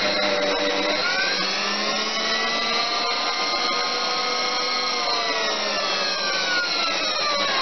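Tool post grinder running at high speed, its wheel grinding a metal part that turns in the lathe chuck, with the lathe running underneath. Several whining tones rise slightly about a second in, hold steady, then sink gradually toward the end.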